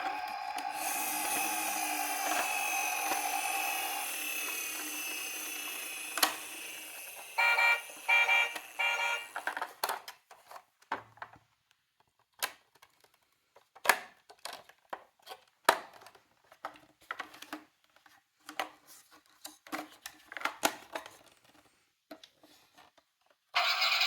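Electronic siren sounds from battery-powered toy emergency vehicles, with a short run of repeated beeping tones around eight seconds in. The sirens stop about ten seconds in, leaving scattered light clicks and knocks of the small plastic cars, and a siren starts again near the end.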